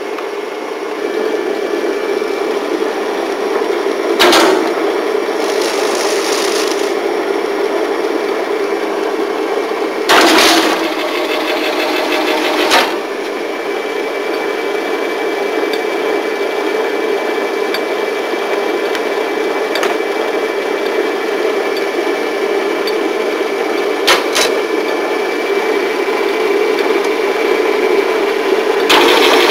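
F&G spiral binding machine running steadily as it turns out a spiral coil, a continuous mechanical hum and rattle. A few sharp clacks stand out, about four, ten and twenty-four seconds in.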